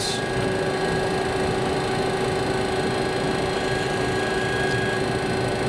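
Steady hum and hiss inside an MD-80 cockpit while taxiing, from the idling engines and the ventilation airflow, with a constant mid-pitched tone running through it.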